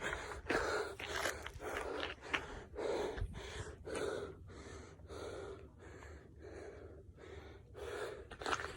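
A hiker panting hard from the exertion of climbing uphill, with about two breaths a second. The breathing eases and grows fainter in the middle, then strengthens again near the end.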